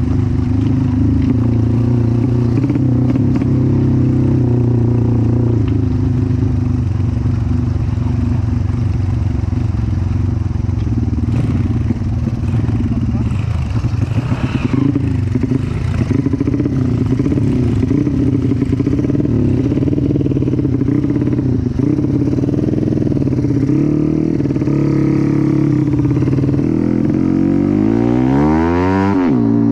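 Motorcycle engine, a Yamaha Jupiter engine in a Honda Win trail bike, running under load, its revs rising and falling as the throttle is worked. Near the end it revs up steeply.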